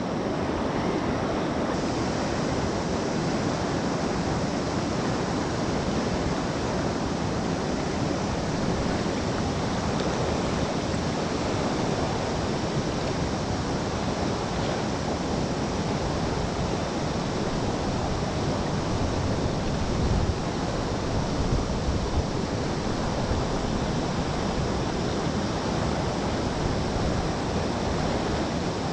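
Steady rushing of a large river's main current flowing past, an even noise with no pauses. A few brief low rumbles swell up about twenty seconds in.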